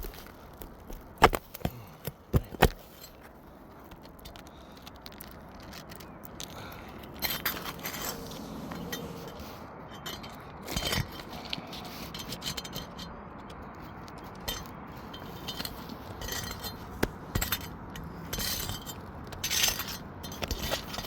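Thin steel pry bar working roofing nails out from under brittle asphalt shingles. A few sharp metallic clicks come in the first few seconds, then scattered lighter clinks and scrapes follow.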